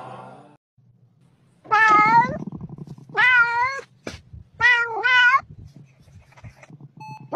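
A cat meowing loudly three times, each call well over half a second long with a wavering pitch, over a faint low hum.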